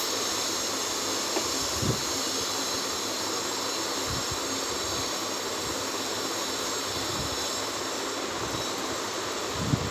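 Steady rushing hiss with a few soft, low thumps from hands working paper against the table.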